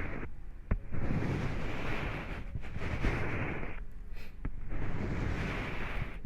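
Close-miked rubbing and scratching noise in long strokes broken by short pauses, with a few sharp clicks.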